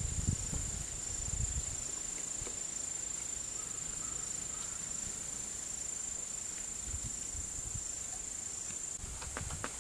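Steady high-pitched insect chorus of crickets or katydids. Low rumbles come near the start and again around seven seconds in, and a quick run of sharp clicks comes near the end.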